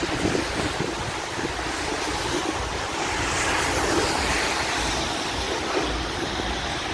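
Wind blowing on the microphone: a steady rushing noise with an uneven low rumble.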